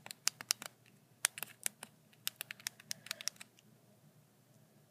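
Buttons on a mobile phone's keypad being pressed by thumb, a quick run of about twenty plastic clicks in three bursts, dialling a number.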